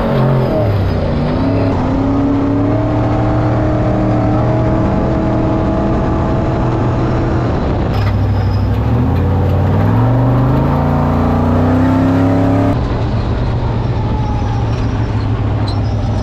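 Trophy truck's V8 engine heard from inside the cockpit, driving under load over a constant rush of wind and tyre noise. Its pitch drops and then climbs slowly through the revs, rises again after a cut, and settles to a lower, steadier run near the end.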